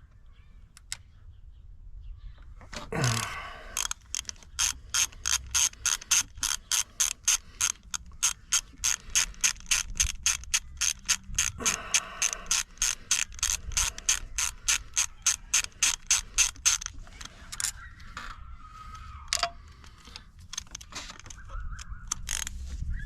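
A ratchet driving a T30 Torx bit, backing out screws. It makes a long run of even ratchet clicks, about three a second, with a short pause partway through.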